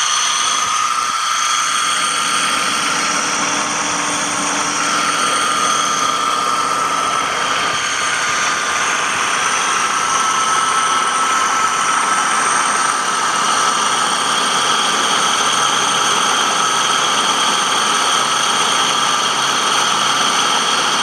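2007 Toyota Avalon's V6 engine running, heard close up at the water pump: a steady air-sucking whoosh with a slight wobble, over several steady high whining tones.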